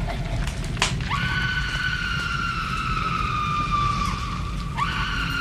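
Dark horror soundscape: a steady low rumble of rain and wind under a high, thin drawn-out tone that sets in about a second in, sinks slowly in pitch, breaks off around four seconds in and returns just before the end.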